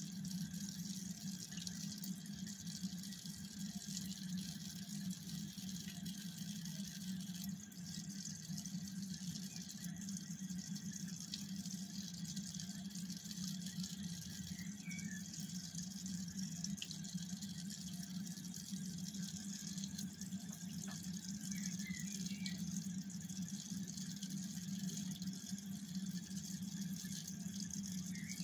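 Reef aquarium water circulating and trickling steadily, over a constant low pump hum.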